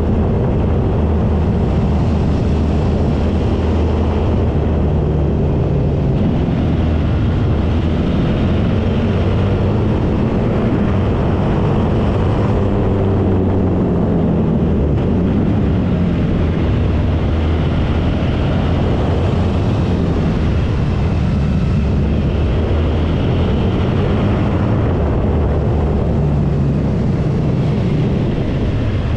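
Suzuki V-Strom 650's V-twin engine running under way, its pitch rising and falling as the rider works the throttle through the bends, with air rushing past.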